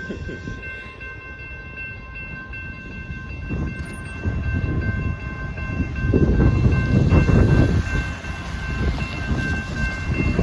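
Amtrak passenger train rumbling past a grade crossing, getting louder about six seconds in, while the crossing warning bell rings on steadily.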